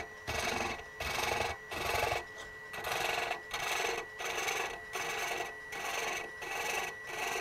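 A 16 TPI thread chaser cutting an internal thread into spinning maple on a lathe turning slowly. It makes a rasping scrape in repeated short passes, about ten of them, each about half a second long, while the thread is being chased by hand. A faint steady high whine runs underneath.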